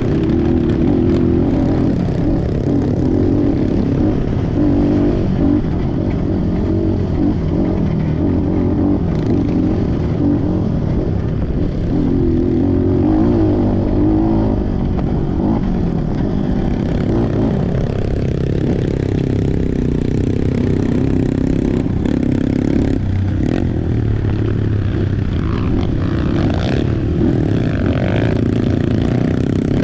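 Trail motorcycle engine running while riding off-road, its pitch rising and falling a little with the throttle, with the rattle and scrape of the bike over rough ground.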